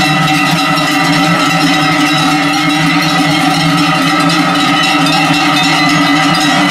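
Many Swiss cowbells on a herd of cattle clanging together in a dense, unbroken jangle of overlapping tones.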